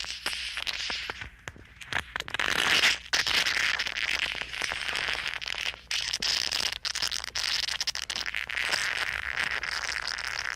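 Gross squishing sound effect: continuous wet squelching and crackling made of many small clicks. It dips briefly about a second and a half in and again around six seconds.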